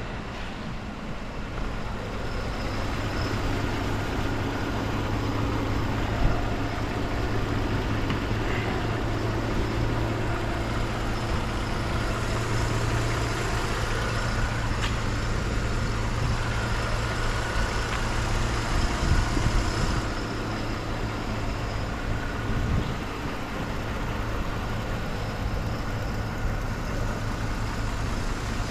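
Mercedes-Benz E300's 3.0-litre gasoline V6 idling steadily, heard with the hood open.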